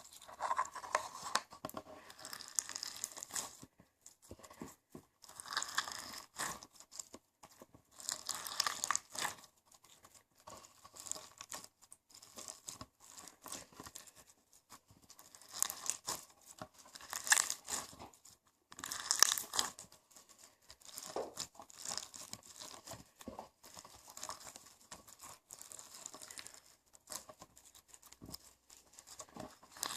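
Slime being squeezed and pressed by hand close to the microphone: crackling, crinkling pops in bursts of a second or two, with short quieter gaps between.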